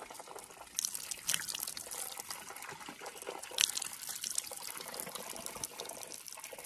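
Cold spring water trickling from a small pipe spout on a water tank and splashing into cupped hands, with a few sharper splashes about a second in and halfway through.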